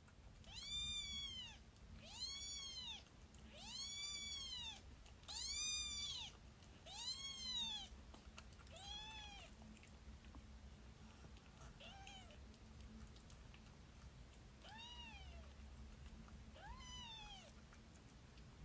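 A kitten meowing repeatedly in high, rise-and-fall calls, about one every second and a half at first, then fewer and fainter after about eight seconds.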